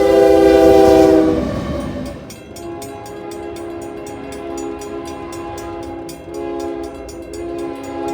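First-generation Nathan K5HL five-chime air horn on a passing locomotive, sounding a loud chord that slides lower in pitch and drops in volume about a second and a half in. The horn then carries on more quietly over the rhythmic clickety-clack of train wheels on rail joints.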